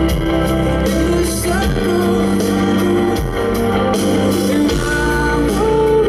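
Rock band playing live: electric guitar and bass over a steady drum beat, with a man singing into a microphone on top.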